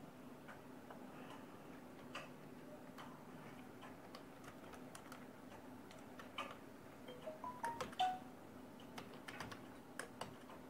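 Computer keyboard keys clicking faintly and irregularly while a user ID and password are typed, with a bunch of keystrokes a little past the middle, over a low steady hum.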